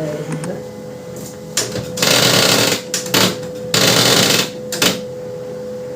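Canon LBP 2900 laser printer running with a steady hum, broken by loud mechanical grinding rattles in several bursts; the longest come about two seconds in and about four seconds in. This is the abnormal loud-noise fault the printer has, which the title puts down to a gear jam.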